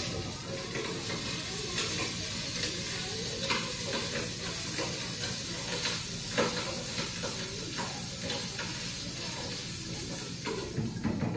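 Food sizzling in a hot frying pan, with frequent clicks and scrapes of a cooking utensil stirring it. The sizzle starts suddenly and dies away near the end.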